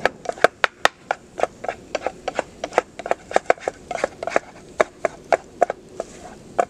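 Scrambling eggs in a pan: a utensil knocks and scrapes against the pan in quick, uneven clicks, about three or four a second.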